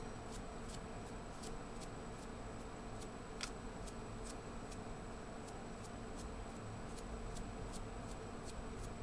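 Small paintbrush scrubbing dust out of a laptop's copper heatsink and fan duct, a soft scratchy brushing. Under it runs a faint, even ticking about two to three times a second, with one sharper click a few seconds in.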